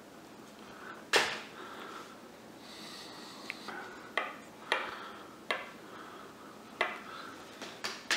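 1868 Wheeler and Wilson sewing machine worked slowly by hand, its rotary hook turning past the needle: a loud click about a second in, then about half a dozen lighter clicks at uneven intervals over faint room noise.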